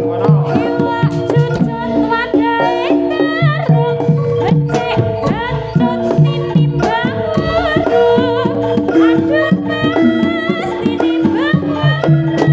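Jaranan gamelan music played live: kendang hand drums keep a steady rhythm under sustained metallophone and gong notes, with a high, wavering melody line gliding above.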